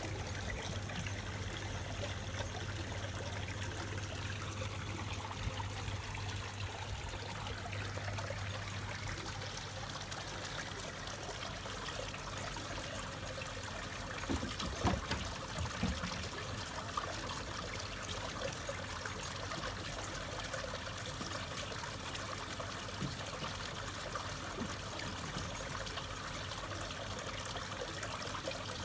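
Steady trickling, pouring water in an above-ground pool, with a low hum under it for the first third. A few brief knocks and splashes come about halfway through.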